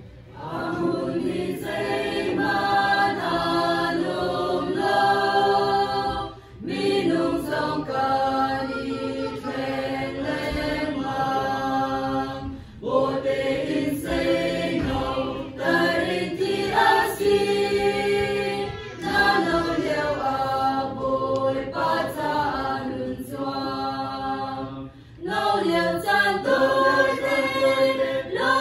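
Mixed church choir of young men and women singing a hymn. It comes in phrases of about six seconds, with brief breaks for breath between them.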